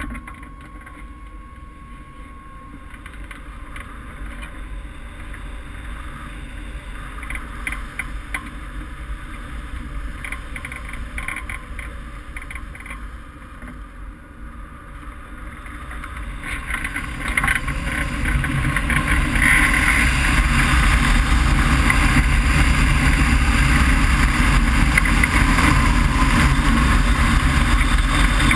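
Airflow rushing over a wing-mounted camera on a hang glider in flight. The wind noise swells gradually, then grows much louder about two-thirds of the way through, as the glider banks steeply toward the landing field.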